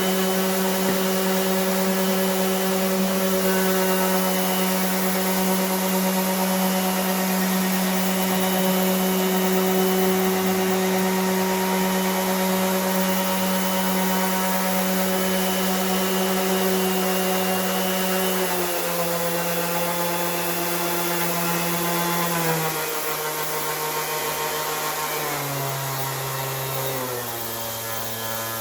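Metabo HPT 18-volt cordless 5-inch random orbital sander running, a steady motor hum with a whine above it. In the last ten seconds or so its pitch drops in several distinct steps.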